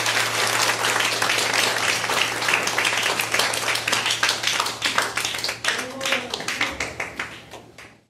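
Audience applauding, the clapping thinning to scattered claps and fading away over the last two seconds. A steady low hum runs underneath until near the end.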